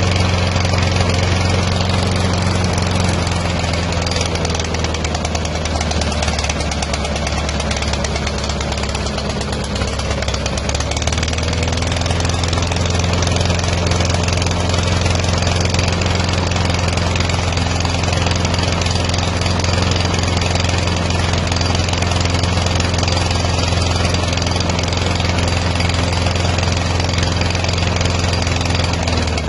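Briggs & Stratton 675 Series single-cylinder mower engine running at a steady speed. It still runs this way despite a new coil, new plug, new head gasket, lapped valves and a very clean carburettor, so the fault being chased remains.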